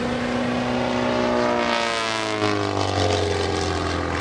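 Pitts aerobatic biplane's piston engine and propeller running at power in flight, its note shifting in pitch partway through as the plane manoeuvres.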